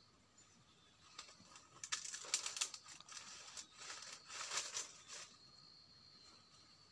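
Irregular crackling, crinkling rustle of dry leaves and plant material being handled, running from about two seconds in until about five seconds in.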